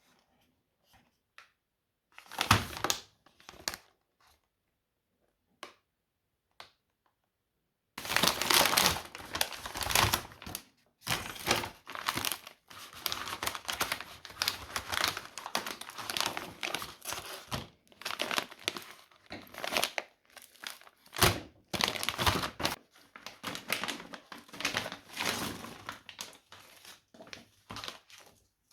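Crinkling and rustling of something crumpled and handled by hand: a few short rustles and clicks, then about eight seconds in a long stretch of dense, continuous crinkling.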